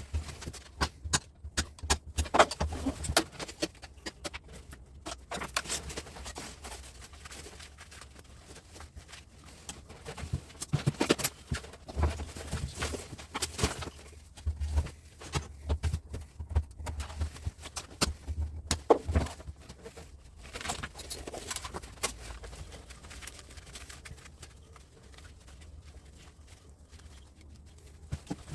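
A knife cutting and scraping the insulation off copper wire: irregular clicks, scrapes and rustles, busiest in the first few seconds and again around the middle.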